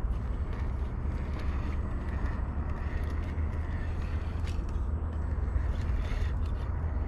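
Vanquish VS4-10 Phoenix RC rock crawler climbing a rock ledge: a faint electric-motor and gear whine with scattered clicks of tyres and chassis on rock, over a steady low rumble.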